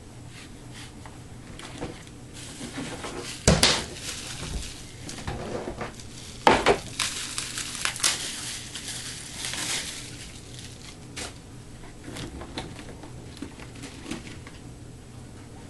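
Packaging handled during an unboxing: plastic wrapping crinkling, with two sharp knocks about three and a half and six and a half seconds in, and lighter clicks and rustles around them.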